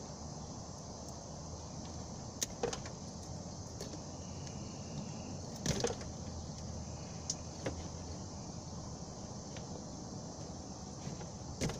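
Scattered sharp clicks and light taps from hand tools and wiring being handled, over a steady background hiss.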